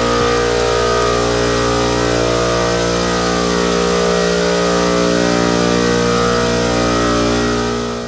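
Refrigeration rack compressors running: a loud, steady machine hum made of several held tones, fading out near the end.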